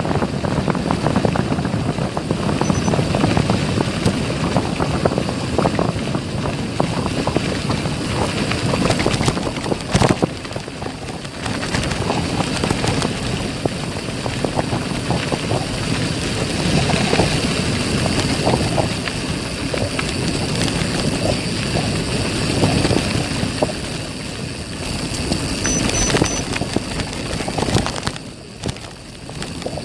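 Mountain bike rolling down a steep dirt descent: tyres rumbling over rough ground and the bike rattling with many small knocks, with wind noise on the microphone. The sound stays steady, easing for a moment near the end.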